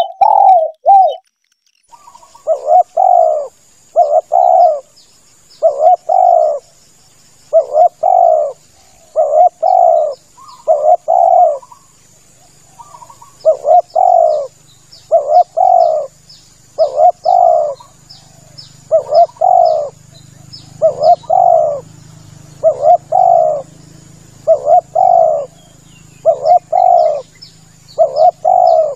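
Spotted dove (tekukur) cooing over and over, each call a pair of short coos, repeated about every one and a half seconds. Behind it runs a steady thin high whine with faint chirps of small birds.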